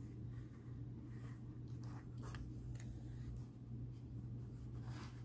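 Faint handling sounds of a stone-chip bead necklace being draped over a burlap display bust: a few light clicks and rustles, over a steady low hum.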